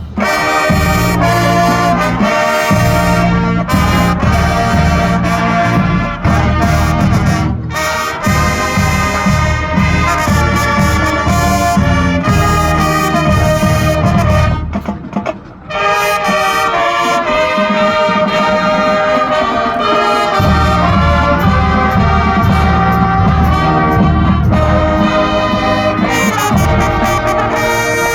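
Marching band brass and drums playing a Christmas medley, with a brief break in the music just past the middle.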